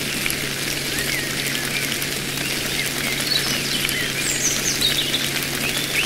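Birds chirping and calling over a steady background hiss and a low hum, with a run of calls falling in pitch about two-thirds of the way through.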